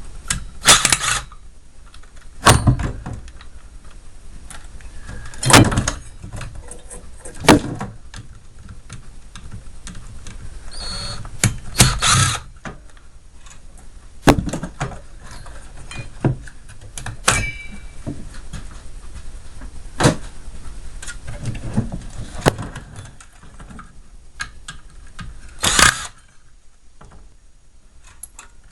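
Irregular knocks, clanks and scrapes of parts being handled and pried loose as a mini fridge is taken apart by hand, with about a dozen sharper impacts spaced through it.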